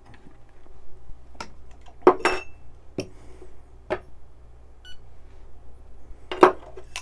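Metal and plastic coffee dosing cups being handled on a digital scale and bench mat: several light clinks and knocks, one with a brief metallic ring, the loudest near the end. A faint short electronic beep from the scale comes about five seconds in.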